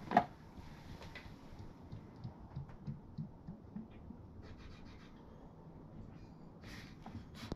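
Quart bottle of motor oil upside down in a motorcycle oil tank's filler neck, draining with faint gurgles. A short knock just after the start as the bottle is set into the neck.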